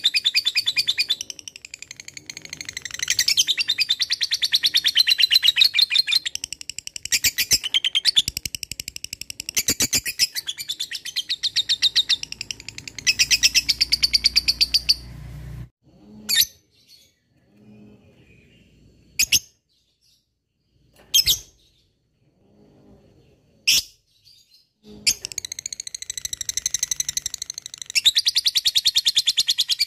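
Lovebird giving its long 'ngekek' chatter: long runs of rapid, high, buzzy repeated notes. Around the middle there is a pause of several seconds broken by four single sharp chirps, then the fast chattering starts again.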